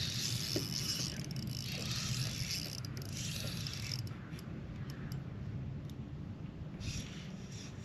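Spinning reel cranked in short whirring bursts, about four of them, while a hooked fish is played on a bent rod. A steady low rumble runs underneath.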